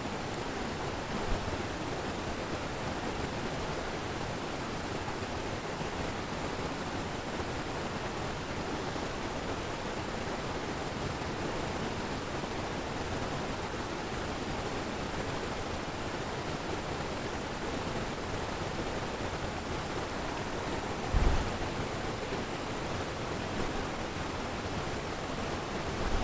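Steady rush of a fast-flowing stream over rapids, an even wash of water noise. A short low bump near the end.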